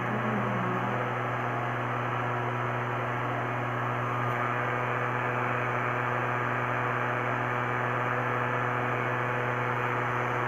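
Small motor-driven plastic fan spinning inside a homemade cardboard air cooler: a steady low hum with an even rush of air over it.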